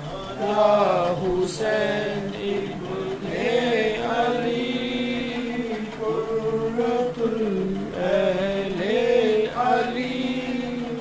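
Male chanting of a devotional Salaam, sung as a slow melody with long held notes that bend up and down.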